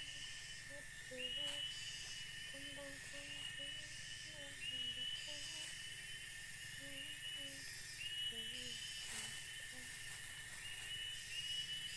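Steady insect drone with a shrill repeating phrase about every second, over faint short low notes and a few light knocks.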